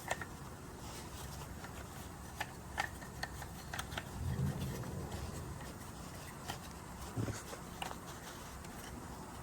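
Scattered light clicks and taps of metal engine parts being handled and fitted by hand, here new hydraulic valve lifters going into their guides, with a couple of soft low thuds.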